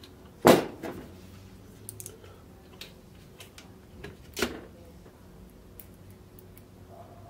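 Handling knocks as a screwdriver is picked up and set against the metal frame of a copier fuser unit: one sharp knock about half a second in, a second about four and a half seconds in, and light clicks between.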